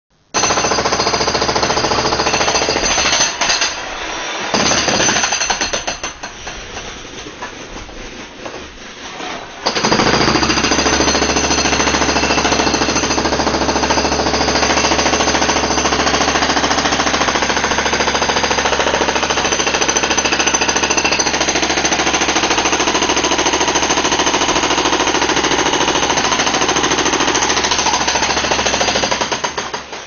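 Jackhammer running loudly at close range. It stops and starts in short runs, then eases off for several seconds about six seconds in. About ten seconds in it starts again and runs on steadily until it stops just before the end.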